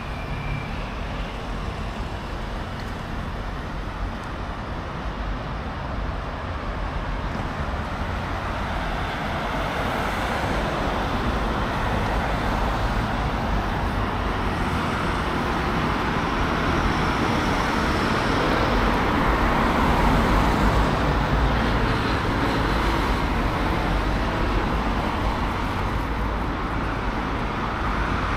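Road traffic: a steady wash of cars passing on a street, swelling louder about two-thirds of the way through and again near the end.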